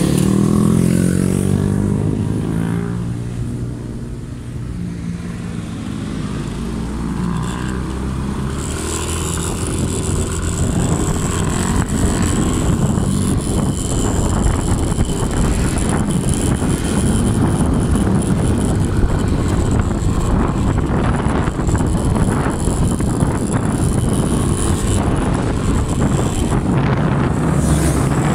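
Motorcycle engines running on the move, with steady wind rush; the engine pitch falls over the first few seconds, then the engine and wind noise hold steady.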